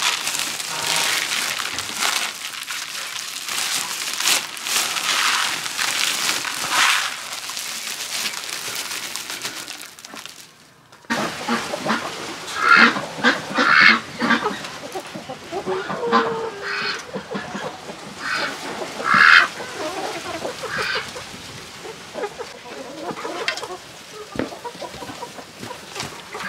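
Dry sprouted rice grains rustling and crackling as they are scooped and poured out of a woven sack into a plastic basin. After about ten seconds the rustle gives way to a flock of chickens and ducks calling, with short, loud calls about two seconds after the change and again about eight seconds after it.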